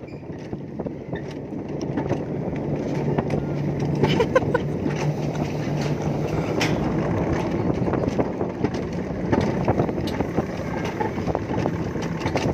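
Alpine coaster sled rolling fast down its steel tube rails: a steady rolling rumble with a low hum, scattered clicks and rattles from the track, growing louder over the first few seconds.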